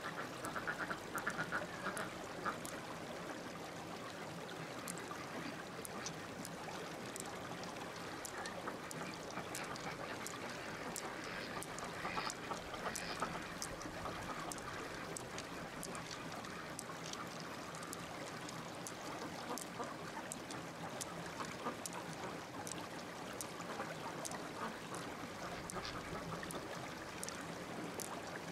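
Pearls clicking lightly against one another as they are picked out of a mussel's flesh and gathered in a cupped palm, many small irregular clicks, over a steady hiss of running water.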